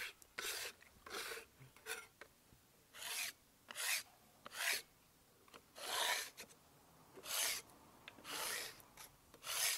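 Putty knife blade scraping across the metal mould plate of a chalk-moulding machine, clearing excess wet chalk slurry off the filled mould cavities. About ten short rasping strokes, each under half a second, with pauses between.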